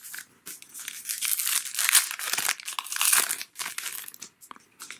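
Wrapper of a baseball card pack being torn open and crinkled: a dense rustling, tearing noise with small crackles, lasting about four seconds.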